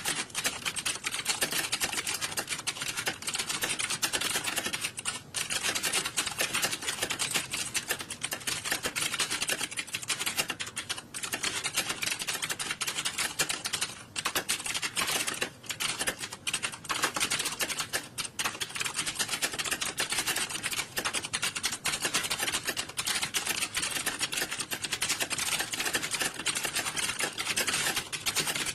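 Computer keyboards being typed on in an exam hall, a dense, continuous clatter of overlapping keystrokes with only a few brief lulls.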